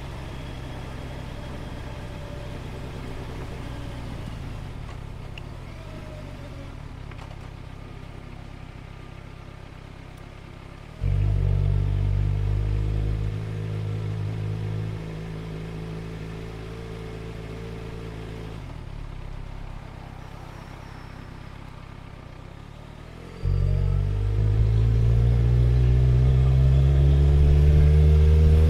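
Motorcycle engine running low and steady, then about eleven seconds in the throttle opens sharply to a louder, low engine note that eases back down in steps. Near the end it opens up again, the engine pitch rising as the bike accelerates.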